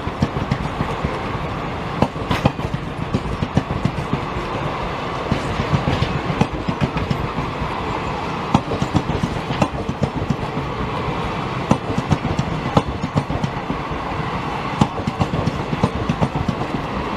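Blue Indian Railways passenger coaches of an express train rolling past close by, their wheels clattering over the rail joints in a continuous run of knocks over a steady rumble.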